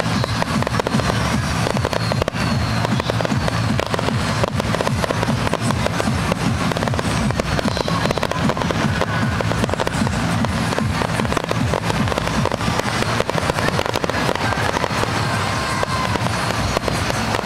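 Aerial fireworks display: a dense, unbroken run of bursts and crackling with a steady low rumble underneath.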